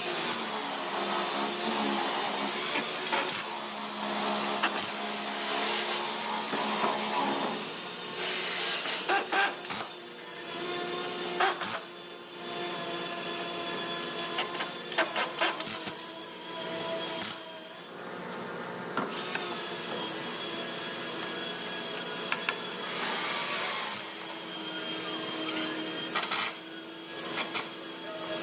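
Electric power tools running in spells, with brief pauses and sharp knocks and clicks of work on wood between them.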